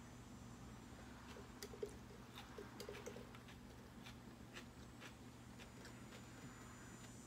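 Quiet sipping through a straw from a plastic tumbler: small wet mouth clicks and swallows, bunched between about one and three seconds in, over a faint steady hum.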